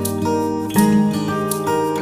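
Background music: strummed acoustic guitar chords, with a new chord struck about three quarters of a second in.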